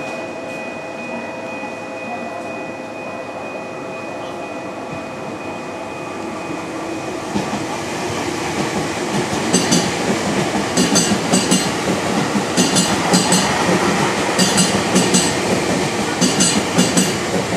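JR East E259 series Narita Express electric train running along the platform. A steady hum builds into a louder rumble about halfway through. From about ten seconds in, wheels clatter over the rail joints in repeated groups, roughly one set per car.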